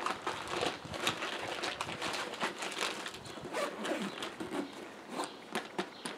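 Rustling fabric of a nylon backpack and small knocks of gear being handled as a tablet is slid into the pack, a busy, irregular run of rustles and clicks.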